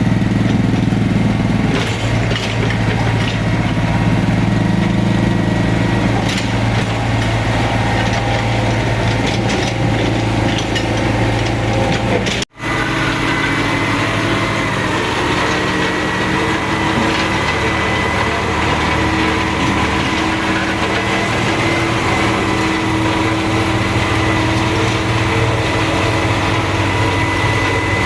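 Excavator's diesel engine running steadily. After a brief cut about halfway through, a thin, steady high whine sits over the engine.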